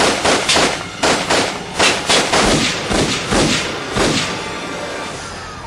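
A rapid volley of gunshots, a dozen or more at several shots a second, stopping about four seconds in: an exchange of gunfire between a suspect and police officers.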